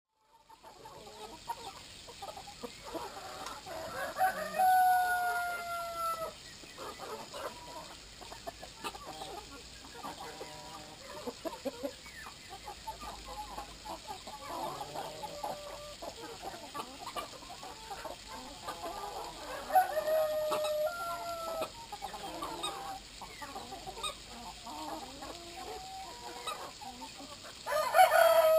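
Flock of Brahma chickens clucking continuously. A rooster crows twice, about four seconds in and about twenty seconds in, each crow ending in a long, slightly falling note. A loud call comes near the end.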